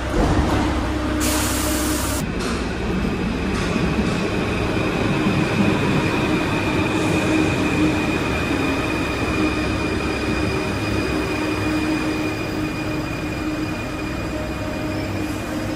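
Paris Métro train pulling into the station and braking to a stop, with a long high-pitched squeal over the rumble of the train, fading near the end. A brief loud rush of noise comes about a second in.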